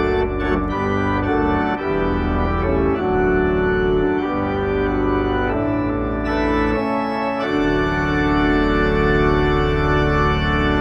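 Content Celeste 340R digital organ playing a hymn verse in sustained chords over a pedal bass, the sound growing brighter about six seconds in, with the last chord released at the very end.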